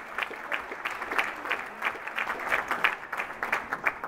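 Audience applauding: dense clapping that drops away suddenly at the very end.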